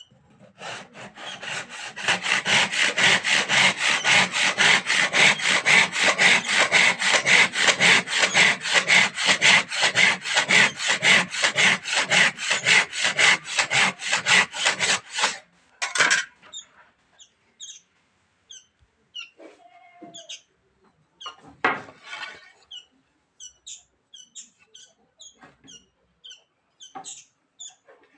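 Handsaw cutting wood in a manual miter guide: fast, even back-and-forth strokes, about three a second, light at first and louder from about two seconds in, stopping about fifteen seconds in. Scattered light clicks and knocks follow.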